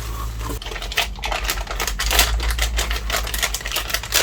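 Packaging around a new hard drive being handled and opened by hand: a run of irregular plastic clicks and crinkles.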